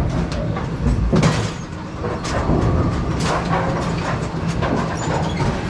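Brunswick pinsetter machinery in a bowling center running: a steady low rumble and hum with irregular metallic clatter and knocks, the loudest knock about a second in.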